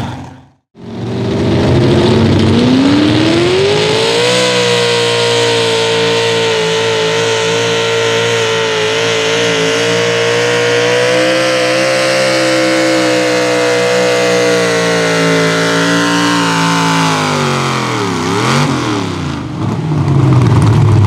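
Pro Stock four-wheel-drive pulling truck's engine revving up over a few seconds to full throttle and held at a steady high scream for over ten seconds while dragging the weight sled. Near the end the revs drop off, with one quick dip and rise before the engine winds down.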